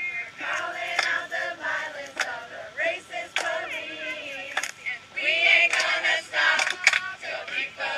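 A crowd singing together, many men's and women's voices at once, with several sharp clicks scattered through.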